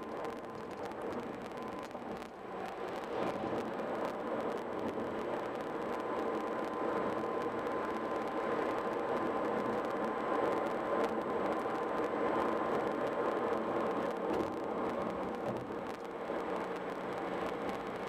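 Steady road and tyre noise of a car driving at highway speed, heard from inside the cabin, with a faint steady whine in it. It grows a little louder about three seconds in.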